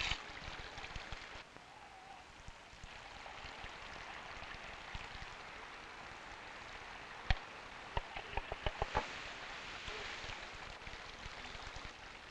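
Steady trickle of running water, with a single sharp tap about seven seconds in and a quick run of several taps soon after.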